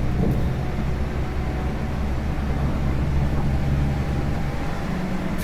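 Scania K410 IB coach heard from inside the cabin while cruising: a steady low diesel drone with road noise. The engine note shifts slightly near the end.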